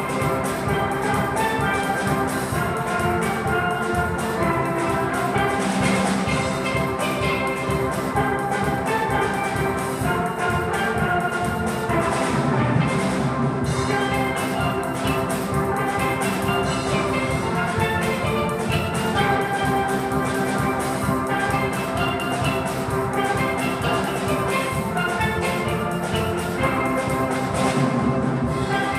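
A steel pan ensemble playing a tune together, many pans ringing at once over a quick, even rhythm.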